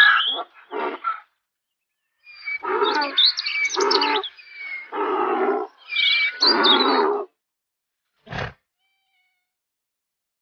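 An animal calling several times over about five seconds, each call loud and rasping with a rich pitched tone, followed by one brief sharp sound.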